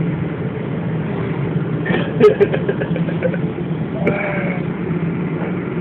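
Boat engine running with a steady low hum, heard inside the cabin. A sharp knock comes about two seconds in, and a brief voice just after four seconds.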